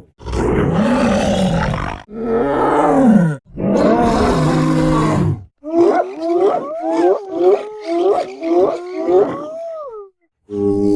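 Sound-designed Tyrannosaurus vocalizations: three long roars in a row, then a quick run of about seven short calls that swoop up and down in pitch.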